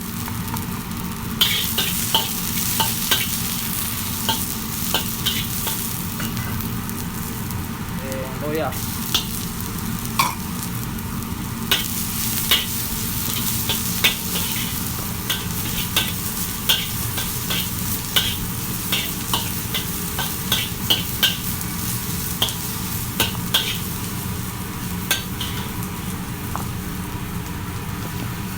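Garlic and onion sautéing in hot oil in a pan, sizzling steadily. The pan is stirred with a utensil that makes irregular sharp clicks and scrapes against it. Ginger goes in partway through.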